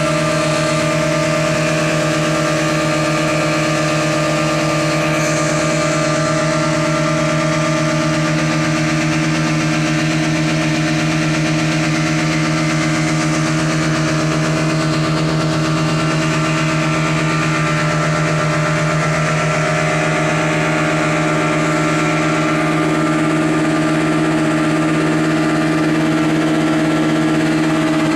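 Twin Yamaha 40 hp outboard motors running flat out at a steady pitch, over the rush of the spraying wake.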